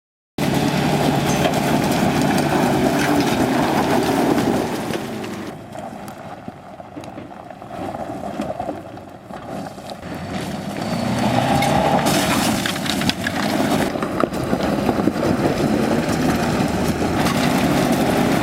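Toyota Land Cruiser engine running under load off-road. It cuts in abruptly, eases off about five seconds in, then builds back up after about ten seconds.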